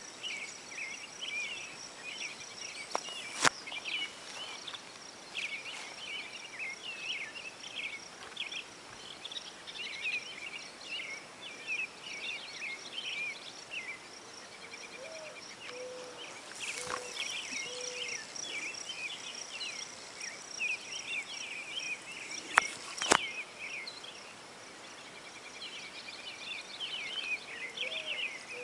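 Many small birds chirping and singing, with a steady high insect trill under them and a few short low calls twice. A handful of sharp taps stand out, the loudest a few seconds in and two close together past the middle.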